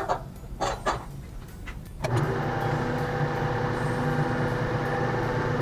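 A few light clicks, then about two seconds in the vertical milling machine's spindle motor starts and runs with a steady hum, spinning the 1/2-inch carbide end mill before it touches off on the cast iron.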